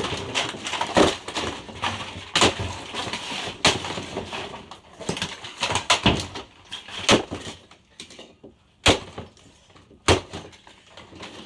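Something hard being smashed: a series of sharp blows about a second apart, each with a crash of breaking material, fading to quieter crackles between the last few.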